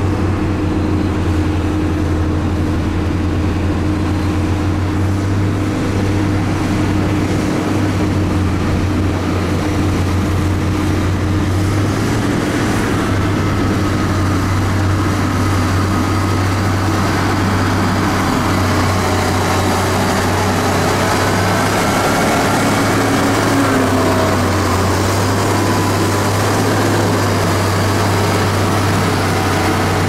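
Heavy construction machinery engine running steadily, a constant low hum, with a fainter higher whine that wavers in pitch in the second half.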